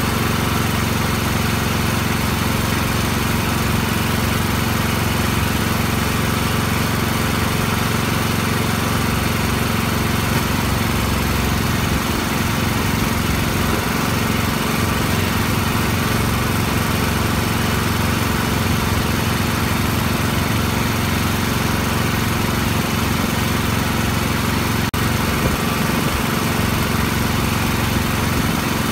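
Small engine running steadily at a constant speed, an unchanging drone with no revving.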